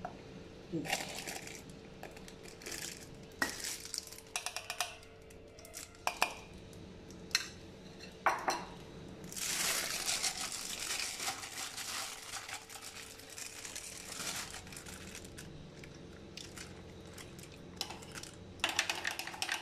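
A spoon clicking and scraping against a bowl in scattered sharp taps, with a plastic bag rustling for a few seconds about halfway through as chocolate mousse mixture is spooned into it.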